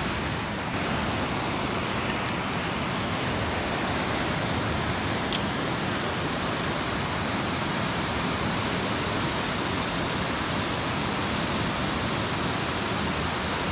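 Steady rush of water pouring from a dam spillway outlet into the pool below. There is a short sharp click about five seconds in and a fainter one about two seconds in.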